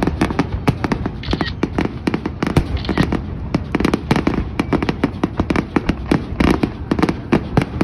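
Fireworks display: aerial shells bursting in a rapid, continuous string of bangs and crackles, several a second.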